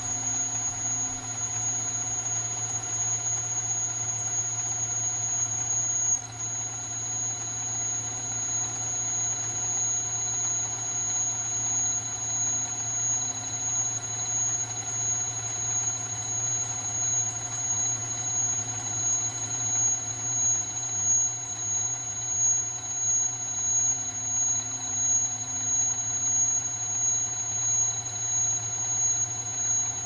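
CNC-converted Sieg Super X3 mill-drill spindle running at about 800 RPM while a lathe tool turns a shallow taper on a 3/8-inch 6061 aluminum bar. A steady high-pitched whine sits over a low machine hum, with a brief jump about six seconds in. Through the second half the sound swells and fades about once a second.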